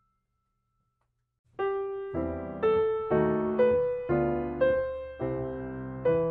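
Silence for about a second and a half, then background music starts: a keyboard melody, one note about every half second.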